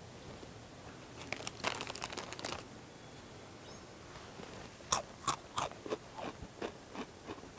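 Takis rolled tortilla chips being crunched loudly with the mouth open. There is a burst of crackling about a second in, then loud bites from about five seconds in that settle into steady chewing crunches, two or three a second.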